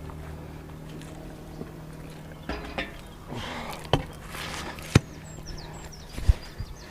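Three sharp knocks, about four, five and six seconds in, amid rustling and scraping, likely from magnet-fishing finds being handled. A bird chirps faintly and briefly near the middle.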